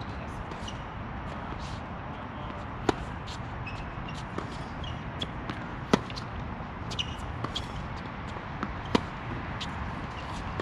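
Tennis rally: sharp racket-on-ball hits about every three seconds, the loudest about six seconds in, with fainter ball bounces and footsteps on the hard court between them, over a steady background hum.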